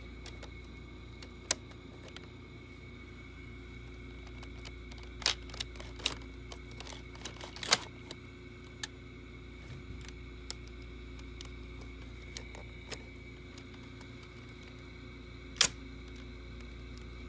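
Hard plastic LEGO bricks and Technic parts clicking and knocking as they are handled and fitted, in scattered single clicks a few seconds apart, the loudest near the end.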